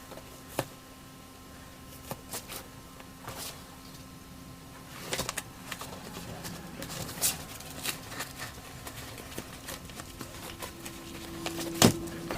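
Scattered clicks, taps and light rustles of hands working car seat foam and tools, over a faint steady hum, with one sharper knock near the end.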